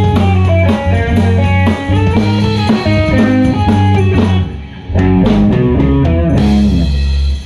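Live blues band of electric guitar, bass guitar and drum kit playing the closing bars of a song. The playing dips briefly about halfway, comes back with a few sharp hits, then holds one final chord that cuts off suddenly at the very end.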